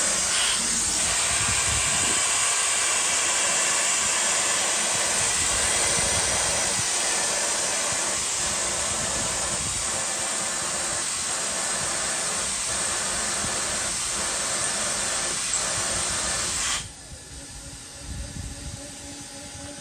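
Compressed-air blast from the mill's nozzle hissing steadily onto a CNC milling cut in cast iron, with the cutter's faint cutting sound underneath. The hiss drops away suddenly near the end, leaving quieter machine sound.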